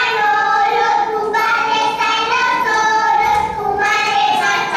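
A song sung by high voices, carrying a melody in held notes.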